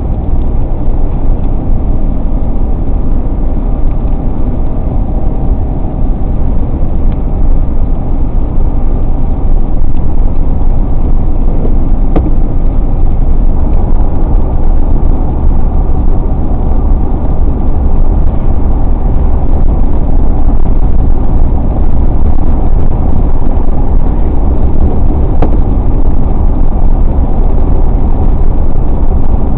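A car driving at highway speed: a steady, loud low rumble of tyre and engine noise, with a couple of faint clicks.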